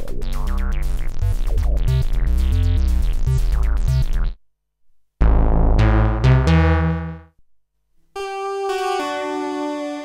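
Arturia MatrixBrute analog synthesizer being played: a fast, bass-heavy rhythmic sequence that stops about four seconds in. After a short gap a loud low chord sounds and dies away, and near the end brighter, higher held chords come in and fade.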